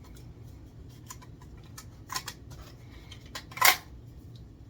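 A 40MAX Lailaps flywheel foam dart blaster being handled: a few light plastic clicks, then one short, sharp burst about three and a half seconds in.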